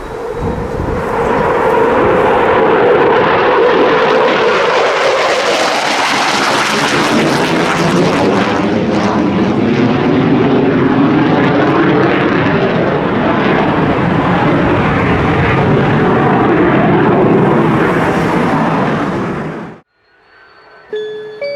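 Military jet taking off at full power: a loud roar that builds over the first two seconds and holds with slowly wavering tones as it passes, then cuts off abruptly near the end, where a few notes of music begin.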